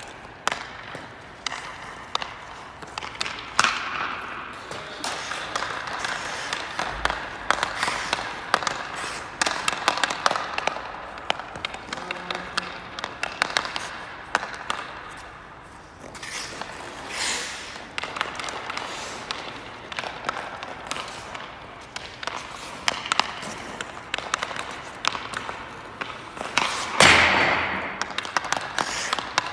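Ice hockey stick striking pucks on the ice, sharp clacks repeated many times at an irregular pace, over the hiss of skate blades scraping the ice, with a louder scrape about 27 seconds in.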